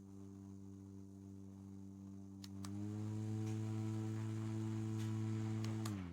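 JISULIFE handheld mini fan's motor running with a steady hum. After a couple of button clicks about two and a half seconds in, it steps up to a higher speed and gets louder. Near the end, after more clicks, it is switched off and winds down with a falling pitch.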